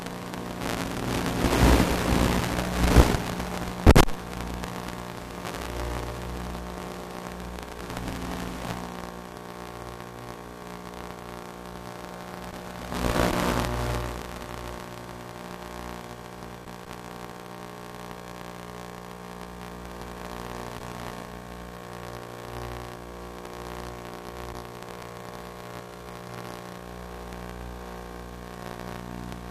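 Wind buffeting and rushing on the microphone in gusts, strongest in the first few seconds and again about halfway, over a steady hum of several tones and a hiss.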